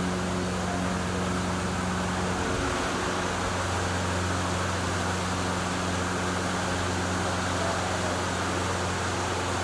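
A machine runs with a steady hum and a rushing, whirring noise. Its humming tones shift slightly about two and a half seconds in.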